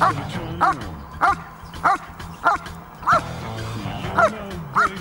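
German shepherd barking at a helper's bite sleeve in the hold-and-bark of protection training: about nine sharp barks, evenly spaced a little over half a second apart. Background music plays underneath.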